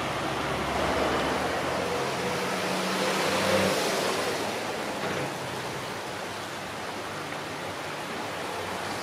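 Outdoor street noise with a motor vehicle's engine running by in the first few seconds, loudest about three and a half seconds in, then a steady rushing noise.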